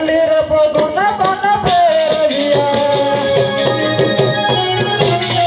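Live music with tabla drumming under a long held melody note.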